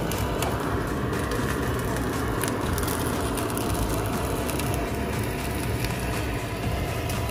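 Steady fish-market background noise: a low rumble with scattered clicks and crackles.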